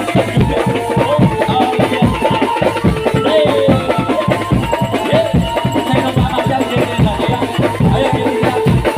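Drum band playing a fast, dense percussion rhythm, with some held melodic tones above the drums.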